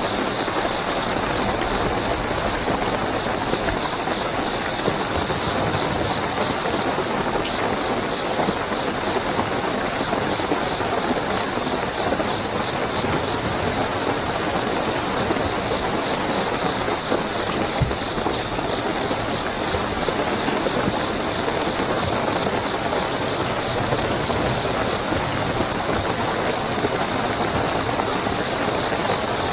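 Steady heavy rain, a dense even hiss of drops, with crickets chirping in a continuous high trill above it.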